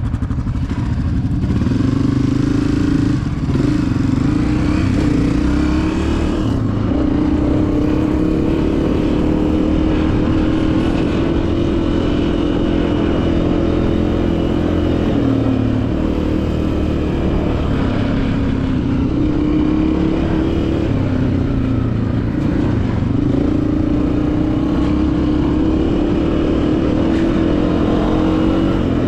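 Honda CRF250F's single-cylinder four-stroke engine running while the bike is ridden, its engine speed dropping and climbing again several times with throttle and gear changes.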